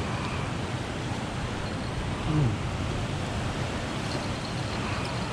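Steady rushing outdoor noise with a low rumble, and one short low sound about two seconds in.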